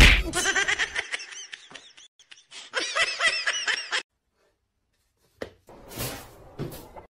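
A person laughing hard in quick rising-and-falling bursts, right after a loud thump as a cat leaps against a television. The laughter stops about four seconds in, and a few faint thumps follow near the end.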